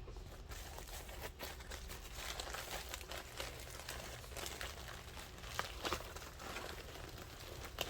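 Crinkling of sticker-pack packaging being handled and turned over, a steady run of small crackles with a few sharper crackles later on.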